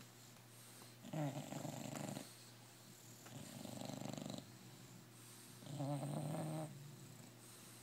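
English bulldog snoring: three snores about two seconds apart, each starting with a falling pitch, the middle one softer.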